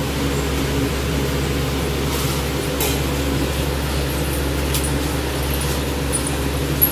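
Steady low hum of a running motor, such as a room fan or cooler, with a few faint light clicks.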